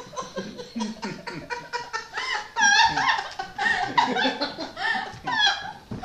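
Several people laughing, with high-pitched giggles.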